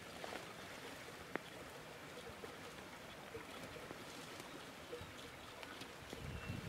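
Quiet outdoor ambience: a faint steady hiss with a single light click about a second and a half in.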